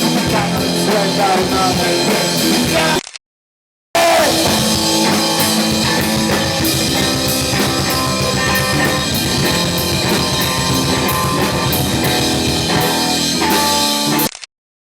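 Rock band playing a fast punk-rock song on electric guitars, bass guitar and drum kit. The music cuts to silence for under a second about three seconds in, resumes, and cuts out again just before the end.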